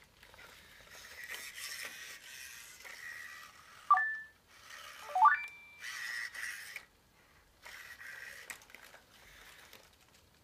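Sony AIBO ERS-210 robot dog's joint servo motors whirring in short stretches as it moves its legs and head, with two quick rising electronic chirps from the robot about four and five seconds in, the second followed by a short steady beep.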